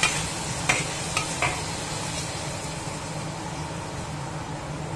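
Water spinach sizzling in a hot wok, with a metal spatula clinking and scraping against the wok a few times in the first second and a half, then a steady sizzle.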